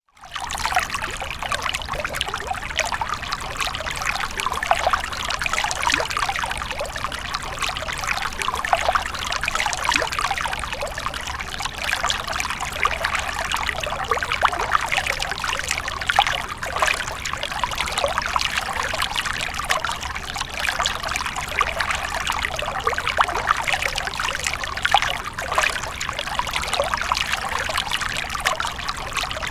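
Water stream pouring and trickling in a steady flow, with a constant splashing babble throughout.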